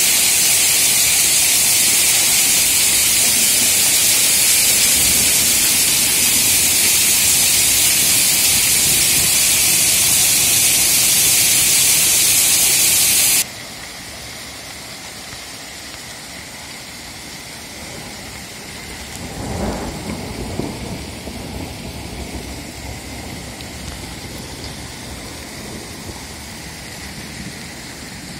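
Heavy rain pouring down, a loud steady hiss that cuts off abruptly about halfway through. Quieter rain follows, and a few seconds later a low rumble of thunder rolls past.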